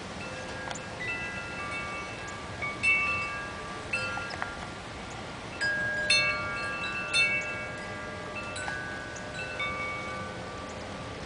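Wind chime ringing irregularly in the storm wind: several metal tones struck at random and left to ring, the loudest strikes about three, six and seven seconds in, over a steady background hiss.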